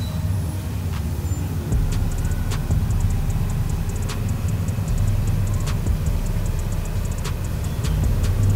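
Street traffic with motorbikes passing: a steady low rumble, with a few sharp clicks scattered through it.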